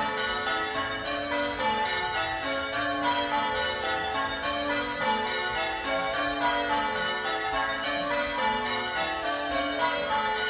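Ring of six Gillett & Johnston church bells (cast 1928, tenor in A) being rung full circle, the bells striking one after another in a steady, even rhythm with their tones ringing on and overlapping. The treble is the most prominent bell.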